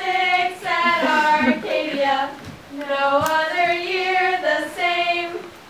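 Girls singing a song without accompaniment, in long held notes, with a short break about halfway.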